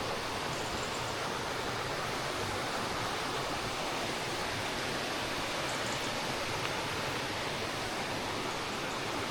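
A river running steadily, a constant even rush of water.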